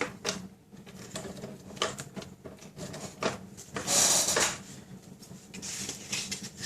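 Paper and card being handled on a craft table: light rustles and clicks, with a brief scraping swipe about four seconds in, as adhesive is run along a strip of card.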